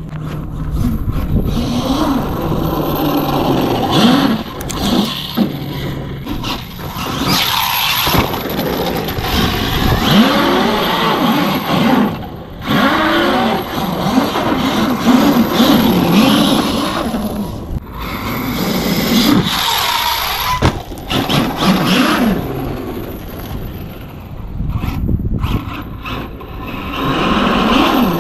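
Arrma Kraton 8S RC truck's brushless 800 KV electric motor whining up and down in pitch as it is driven hard, with the tyres scraping over gravel. The whine breaks off sharply a few times.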